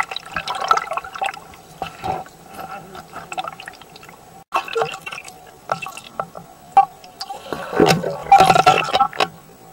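Water bubbling and sloshing heard through a submerged camera, with many small clicks and pops. Near the end comes the loudest rush of bubbling as a dog plunges its muzzle into the water beside the camera.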